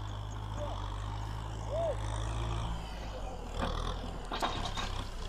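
Compact tractor engine running steadily as the tractor drives through brush with its front dozer blade, with a few knocks and rattles about four seconds in.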